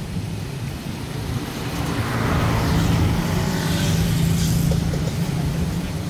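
Road traffic: a steady low engine hum, swelling about two seconds in as a vehicle goes by and easing off near the end.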